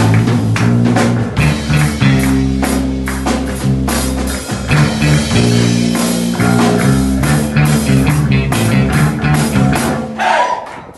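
A band playing a loud instrumental passage on drum kit, bass and guitar, with steady drum hits under held bass notes. It drops away near the end.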